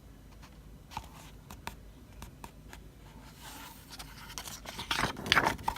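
A few light ticks, then paper rustling that grows louder near the end as pages of a photo book are handled and turned.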